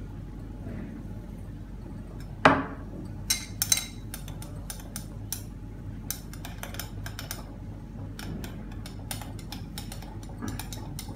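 Glass stirring rod clinking against a glass beaker, with one sharp knock about two and a half seconds in and a quick cluster of clicks soon after, then a run of light taps, over a low steady hum.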